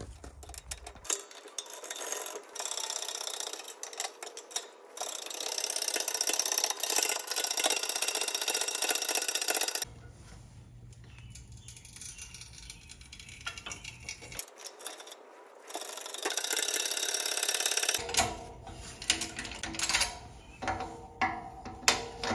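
Hand-pumped hydraulic shop press driving a greased ball bearing into the aluminium bore of a Yamaha jet pump housing through a steel socket, pressing it in until it is snug. Steady mechanical noise comes first, then a run of sharp metal clicks and clinks in the last few seconds.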